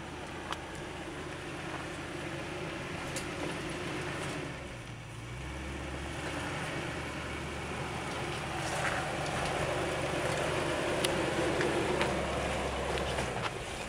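Range Rover Classic crawling slowly over rocks, its engine running low and steady, with a few sharp clicks of stones under the tyres. The engine hum deepens about five seconds in and grows louder in the second half.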